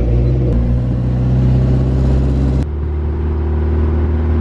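Car engine and road noise heard from inside the cabin of a moving taxi: a steady low drone that changes abruptly twice.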